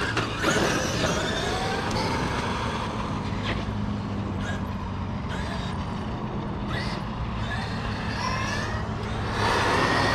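Road traffic: motor vehicles running and passing, with a steady low engine hum and tyre noise that grows a little louder near the end.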